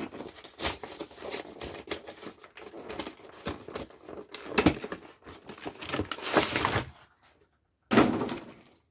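Foil booster pack wrapper crinkling and rustling in the hands as it is worked open, with a longer burst of crinkling about six seconds in. A single dull knock follows near the end.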